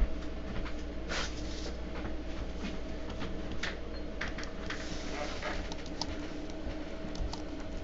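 Quiet room tone: a steady low electrical hum with scattered faint clicks and a brief rustle about a second in.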